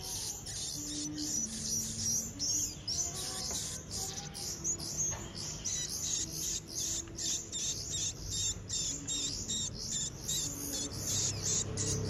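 A brood of finch nestlings begging for food: rapid, high-pitched cheeps repeated several times a second, with faint low notes of background music beneath.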